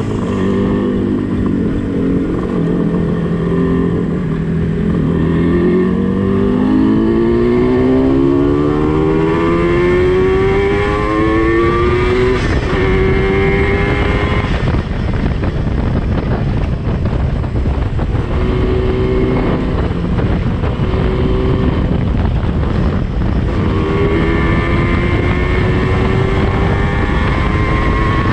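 Yamaha RD350's two-stroke parallel-twin engine, breathing through DG expansion chambers, pulling under way with its revs climbing slowly, a short break for a gear change about twelve seconds in, then holding steady with wind rush before climbing again near the end.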